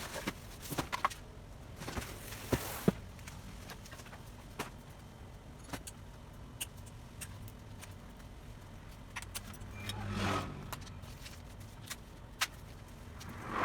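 Handling noises while a new bicycle is unboxed: scattered clicks and knocks of parts and packaging being moved, with a brief rustling scrape about ten seconds in and another near the end.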